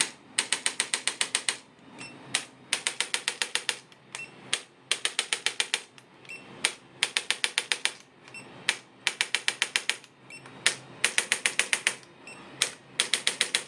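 Handheld mechanical adjusting or percussion instrument clicking in rapid bursts of about eight taps a second. Each burst lasts about a second, and a new burst starts roughly every two seconds, seven times in all.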